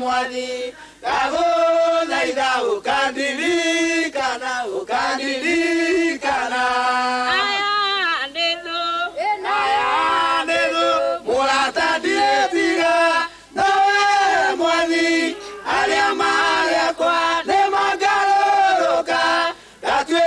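Mixed choir of men's and women's voices singing a Kikuyu-language gospel song, in phrases with short breaks between them.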